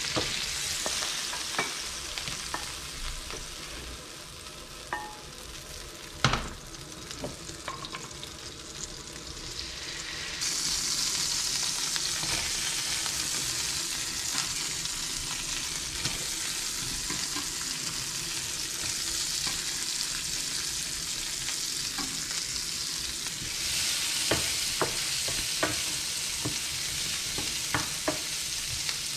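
Food sizzling in a hot non-stick frying pan, first prawns and then sliced onion and garlic in oil, stirred with a wooden spoon. The sizzle gets louder about ten seconds in, and the spoon clicks and knocks against the pan, most often near the end.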